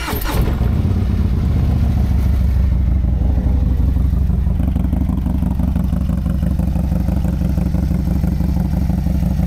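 Harley-Davidson Low Rider ST's Milwaukee-Eight 117 V-twin idling steadily through a two-into-one exhaust, freshly started, with a nice bark.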